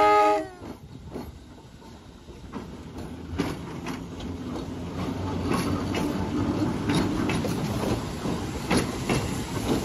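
Chicago North Shore Line electric interurban train: its horn cuts off about half a second in, sagging in pitch, then the cars roll past with a rumble that grows louder and steel wheels clicking over the rail joints.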